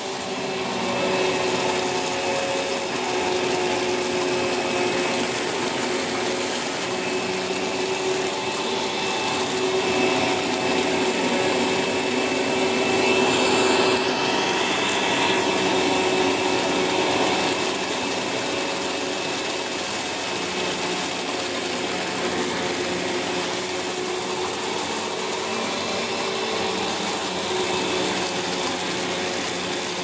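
Sanyo SC-A7AX 1200 W bagged upright vacuum cleaner running at maximum motor speed, pushed back and forth over carpet as it picks up scattered rice and porridge oats. Its steady motor whine grows louder as it passes closest, about halfway through.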